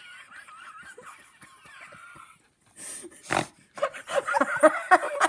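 A person laughing and wheezing, muffled: a thin, wavering high squeal at first, then a sharp burst about three seconds in, followed by choppy bursts.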